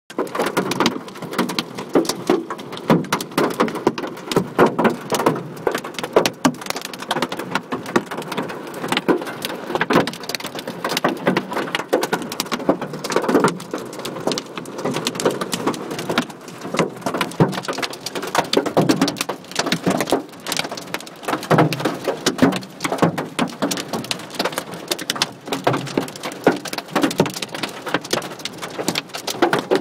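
Hailstones the size of golf balls and heavy rain pelting down in a thunderstorm: a dense, irregular clatter of hard impacts over a steady downpour.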